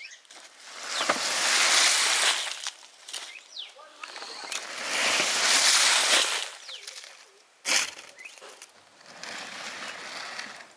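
Dry soil and stones scraped and scattered by hand in several gritty swells a second or two long, with one short sharp knock about three quarters of the way through.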